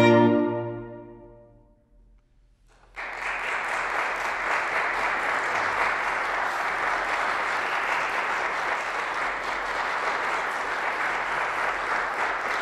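The final chord of a bassoon and string trio (violin, viola, cello) rings out and fades away over about two seconds. After a brief hush, audience applause starts suddenly about three seconds in and goes on steadily.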